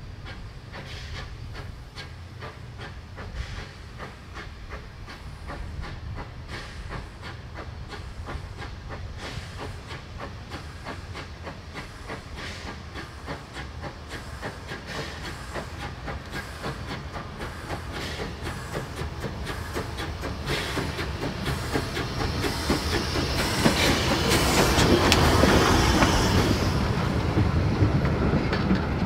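Steam train approaching and passing close by: the locomotive's regular exhaust beats and rumble grow steadily louder, with a loud rush of steam about three quarters of the way in as the engine passes. Near the end the wooden Länderbahn-era wagons roll past with the clickety-clack of wheels over the rail joints.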